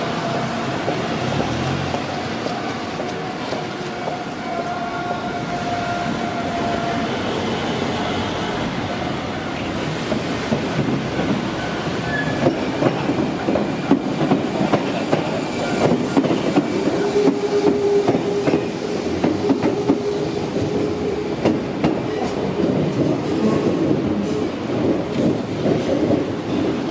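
Shizuoka Railway electric commuter train running on the Shizuoka-Shimizu Line, with a steady rumble and a whine at first, then dense, uneven clicking of the wheels over the rails from about ten seconds in.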